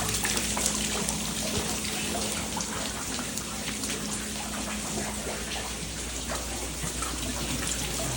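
Water from burst frozen pipes running and dripping, with many irregular drops splashing into standing water on a flooded basement floor.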